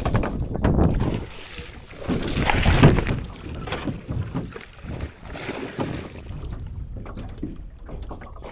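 Wind buffeting the microphone with irregular rustling and knocking, loudest about three seconds in.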